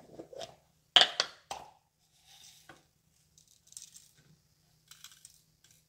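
A plastic tub of chocolate sprinkles being handled. Sharp clicks and knocks as its lid comes off, loudest about a second in, then faint light rattling as sprinkles are shaken out.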